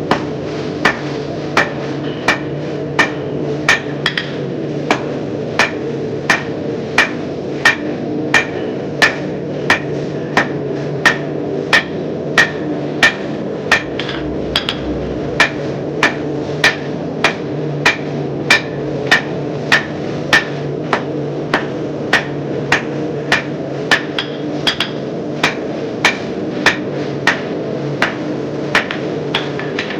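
Hand hammer striking hot mild steel round bar on an anvil, forging it, in a steady rhythm of about one and a half blows a second, each with a short metallic ring, over a steady hum.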